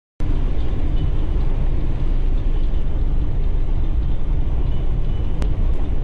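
Steady low rumble of a car driving at highway speed, heard from inside the cabin: engine and road noise. A brief click comes about five and a half seconds in.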